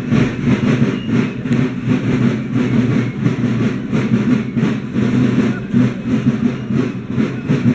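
Marching drums of a folklore march company beating a steady march rhythm, about four strokes a second.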